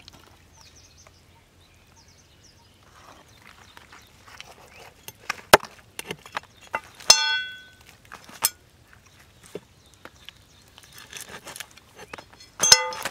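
A knife chopping quail on a wooden log used as a chopping block: irregular sharp knocks, with a short metallic ring about seven seconds in and another near the end.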